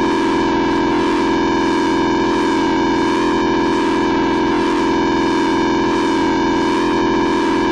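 Loud, steady, synthesized emergency-alert alarm tone: several pitches held together without changing, a warbling electronic drone.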